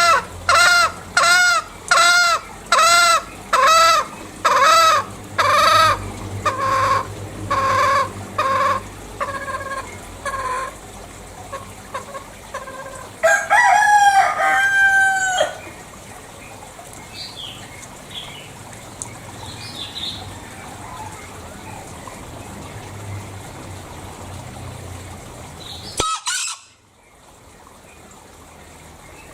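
Green junglefowl (Gallus varius) calling: a rapid series of sharp cackling 'kekek' calls, about two a second, that slow and fade over some ten seconds, then a louder drawn-out crow about 13 seconds in. Faint chirps of other birds follow, and a short loud crackle near the end before the sound drops.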